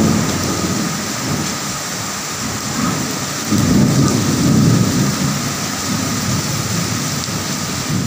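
Heavy rain pouring steadily, with thunder rumbling low under it; a louder roll of thunder swells up about three and a half seconds in and fades over a couple of seconds.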